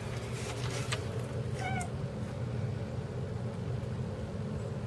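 Turkish Van cat giving one short, wavering chirp about a second and a half in, a cat chirping at something it has spotted outside. A steady low hum runs underneath.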